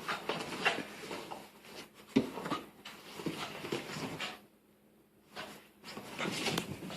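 Boston terrier making weird noises in a run of short noisy bursts, with a sharp knock about two seconds in and a pause of about a second past the middle. The owner puts the noises down to a new sweater the dog dislikes.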